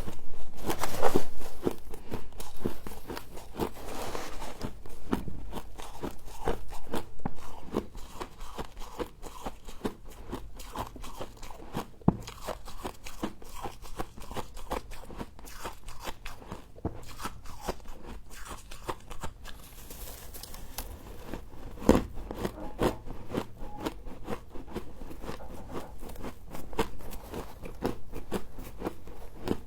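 A person biting and chewing mouthfuls of frost close to the microphone: dense, crisp, irregular crunching, louder in the first several seconds, with a few sharper cracks standing out later on.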